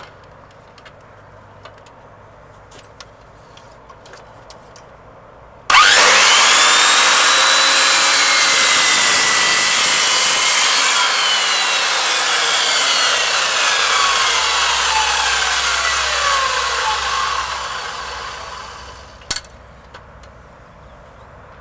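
Two electric circular saws start cutting into a timber pole together, a sudden loud whine about six seconds in, then cut through with their tone gliding down for about twelve seconds before fading away. A single sharp click follows.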